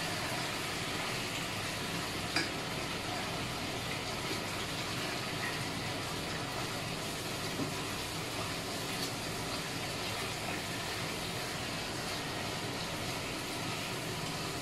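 Chicken pieces frying in a pot, sizzling steadily as they brown, while a spatula stirs and turns them, giving a few light clicks against the pot. Under it runs the steady noise of the range-hood exhaust fan.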